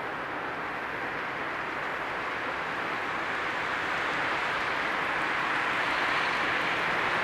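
Regio passenger train approaching the station, a steady rushing rumble of the train that grows gradually louder.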